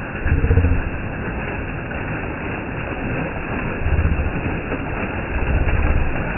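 Waterfall water rushing in a steady roar, broken by three brief low rumbles.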